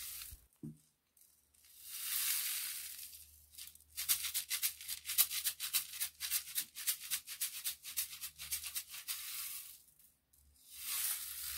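Homemade rain stick, a tube filled with seeds and aluminium-foil strips, tipped end over end so the seeds slide down through it: a soft rushing hiss that swells and fades about two seconds in, then several seconds of fast rattling ticks, then another rushing swell near the end.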